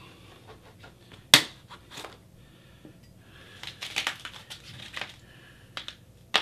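Foam packaging sleeves on a bicycle frame being handled and pulled at, with scattered crinkling and crunching and one sharp snap about a second in, the loudest sound.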